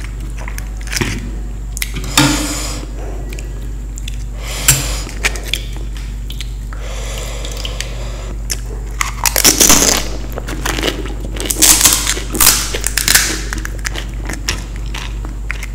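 Close-miked eating of crisp fried Indian street snacks: irregular crunches and crackles as pieces are bitten and chewed, with the loudest run of crunching a little past the middle.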